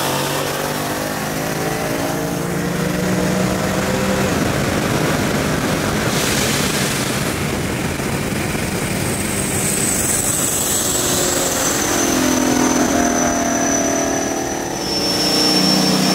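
Cars running at highway speed: a steady engine drone under heavy wind and road rush. A thin high whistle comes in about halfway through and steps down in pitch.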